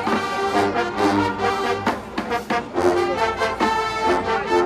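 High school marching band playing, brass holding full chords over sharp drum hits.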